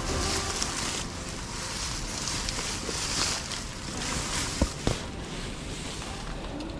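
Tall grass and reeds rustling and brushing against the camera as someone pushes through them, a hiss that swells and fades in waves. Two sharp clicks come close together about two-thirds of the way through.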